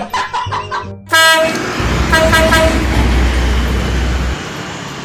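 A vehicle horn blares about a second in, followed by three quick toots, over the low rumble of a heavy container truck passing close by; the rumble drops away about a second before the end. At the very start, the tail of a bit of children's music.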